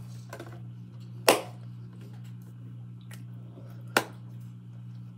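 Handling noise under a steady low hum: a loud knock about a second in, then a single sharp hand clap about four seconds in.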